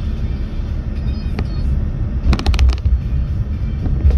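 Steady low rumble of a car driving at road speed, heard from inside the cabin, with a quick cluster of clicks a little past halfway.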